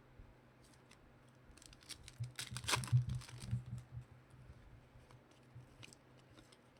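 Trading cards and their wrapper being handled: a burst of rustling and tearing about two seconds in, loudest near the middle, followed by a few light clicks.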